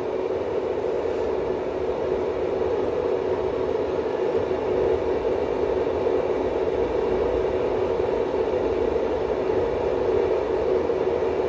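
A steady whirring hum with one faint constant tone in it, unchanging and without speech.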